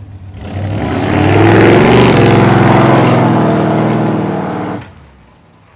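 A vehicle engine revs up and is held at high revs for about three seconds, then drops away sharply near the end.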